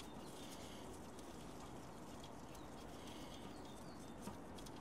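Quiet background with a few faint small clicks and one slightly louder tick about four seconds in, from gloved hands undoing the finger-tight bolt that holds a rear ABS wheel-speed sensor.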